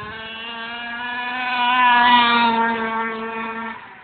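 Gas-powered RC car's small two-stroke engine running at high, steady revs as it drives by, growing louder to a peak about two seconds in, then fading away near the end.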